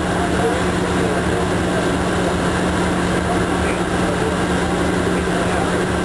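Steady machinery drone with a constant low hum, unchanging throughout.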